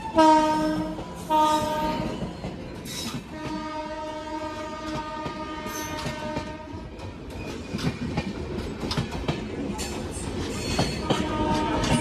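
Electric locomotive horn sounding two short blasts and then a long one of about three and a half seconds, with another blast starting near the end. Underneath, a passenger train passing close by, its wheels clattering over rail joints in quick clicks.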